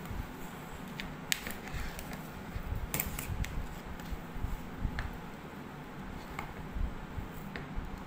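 Metal ice cream scoop scraping and clicking against the metal freezer bowl of a Scoopy ice maker as ice cream is dug out: a handful of sharp clicks and knocks over a low hum.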